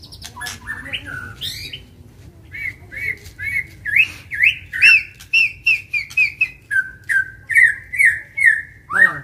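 White-rumped shama (murai batu) singing: a fast run of repeated, sliding whistled notes, about three a second, growing loud from some two and a half seconds in, with sharp clicks between them.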